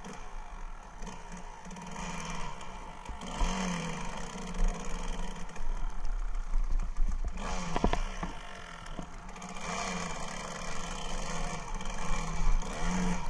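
1999 Kawasaki KDX220R's two-stroke single-cylinder engine running under way, revving up and falling back several times, heard muffled through a sealed camera case.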